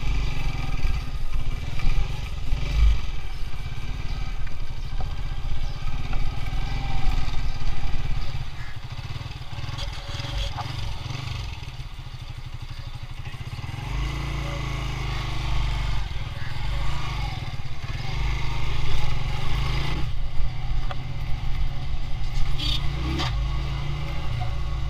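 Small motorcycle engine running while being ridden, heard from the rider's seat. It gets quieter about a third of the way through and picks up again a little past the middle.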